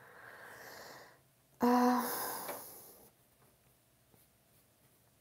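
A woman breathes out audibly, then makes a short voiced sigh about one and a half seconds in that trails off into breath. A few faint clicks follow.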